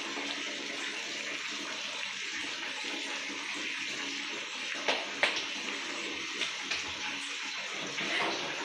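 Nuggets deep-frying in hot oil: a steady sizzling hiss. A plastic spatula knocks or scrapes in the pan a few times, about five seconds in and again near the end.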